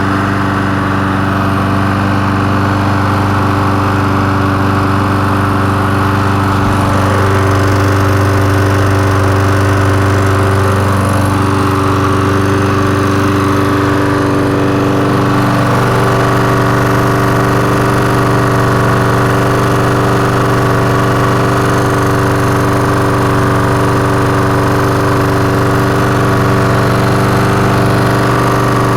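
Lawn mower's small gasoline engine running steadily at a constant speed, with a slight change in engine speed about halfway through.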